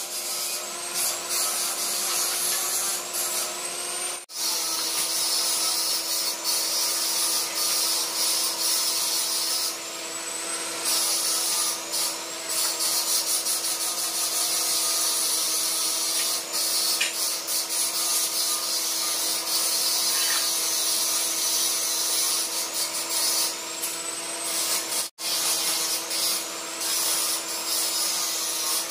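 A steady machine hum with a constant hiss over it, cutting out briefly twice.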